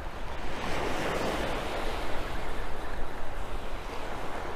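Small surf waves washing up onto a sandy beach, swelling about a second in, with wind rumbling on the microphone underneath.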